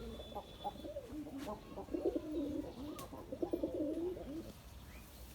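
Domestic pigeons cooing, several calls overlapping, until they stop about four and a half seconds in.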